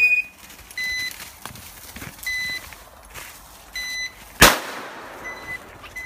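A single shotgun shot about four and a half seconds in, fired at a flushed game bird. Under it a dog's beeper collar sounds short electronic beeps about every second and a half, the point-mode signal that the dog is holding a bird on point.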